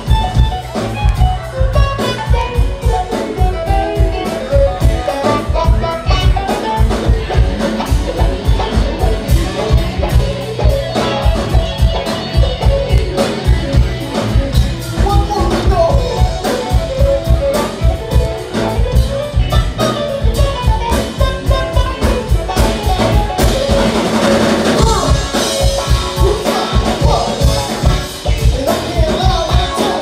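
Live band playing with electric guitar, keyboard, saxophone and drum kit, a vocalist singing into a microphone over a steady drum beat.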